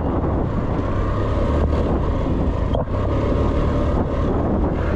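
Engine of a moving motor vehicle running steadily: an even, low hum with road noise over it.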